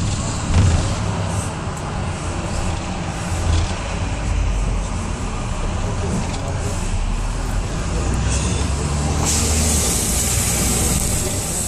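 Road vehicle in motion, heard from inside: a steady low engine and tyre rumble. From about nine seconds in a louder rushing hiss lasts for about two seconds.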